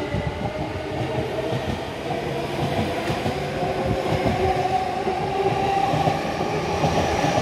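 Yamanote Line electric commuter train running past along the platform: a steady rumble of wheels on rail, with faint steady tones over it.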